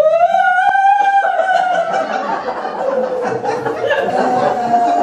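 Two women wailing in long, drawn-out comic sobs: one voice slides sharply up in pitch at the start and holds the note, and a second, lower wail joins it about a second and a half in.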